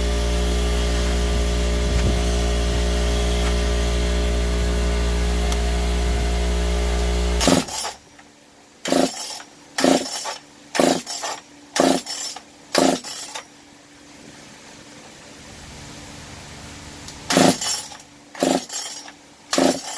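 Makita DPC7321 concrete saw's two-stroke engine running steadily, then cutting out suddenly about seven seconds in. This is followed by a series of quick recoil starter-cord pulls, roughly one a second, that fail to restart it; the owner suspects a bad ignition coil.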